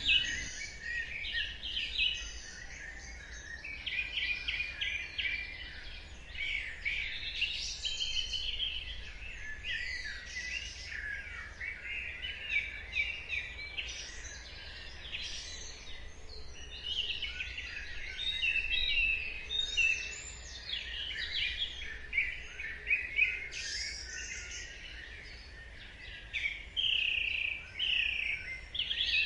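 Dawn chorus of several songbirds chirping, trilling and whistling at once, calls overlapping without a break, over a faint low background hum.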